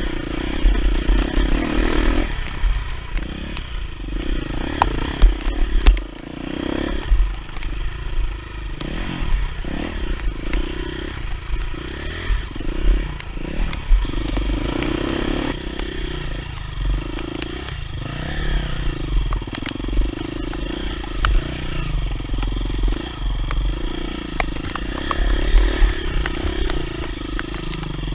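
Off-road dirt bike engine running and changing revs while riding a trail, with knocks and rattles from the bike and a heavy low rumble on the microphone.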